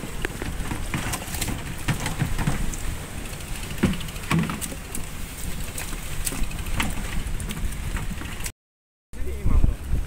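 Scattered clicks and knocks of a white plastic cooler box being handled and its lid opened. After a break near the end, low wind rumble on the microphone.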